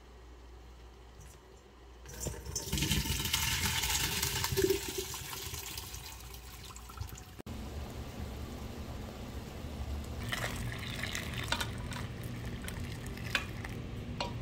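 Water poured off chopped peppers and onions into a colander in the sink: a loud splashing rush starting about two seconds in and lasting a few seconds. Then a pot of water at a rolling boil, a steady bubbling hiss, with a few knocks of the pot near the end.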